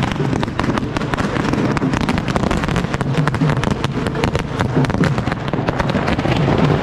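Firecrackers bursting on the road, a dense, continuous crackle of sharp pops in quick succession.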